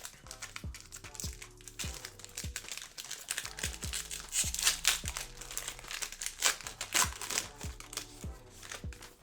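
Trading cards and their plastic packaging crinkling and rustling as they are handled, in irregular bursts, over background music with a steady beat.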